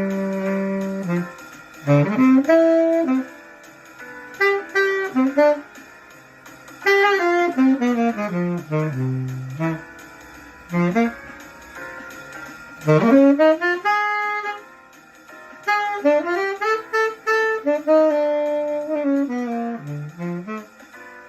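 A single wind instrument playing a jazz melody line, one note at a time. Held notes alternate with fast runs that sweep down and back up.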